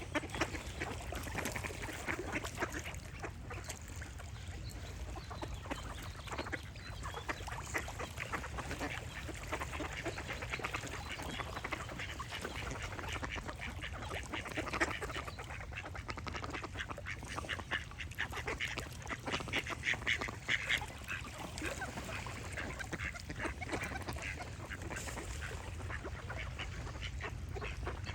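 Ducks quacking over and over in quick runs of short calls, with a steady low hum underneath.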